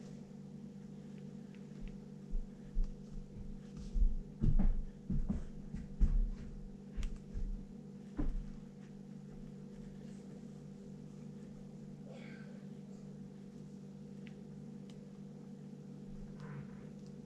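A steady low electrical hum, with a run of dull, irregular low thumps and knocks starting about two seconds in and lasting about seven seconds.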